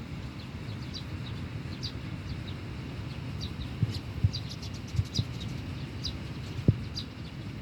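Small birds chirping: short, high calls repeated every half second or so, over a steady low rumble, with a few dull thumps in the second half.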